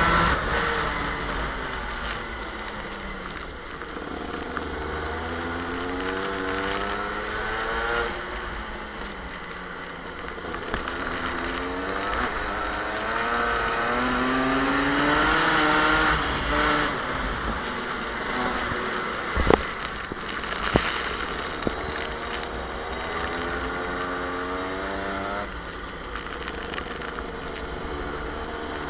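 Onboard sound of a Rotax two-stroke kart engine, its pitch climbing as it accelerates out of corners and dropping back as the driver lifts, several times over, under a steady rushing hiss. Two sharp knocks come a little past the middle.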